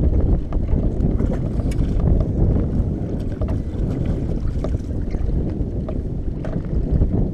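Wind buffeting the microphone over water slapping against a small aluminium boat's hull, with a few scattered light clicks.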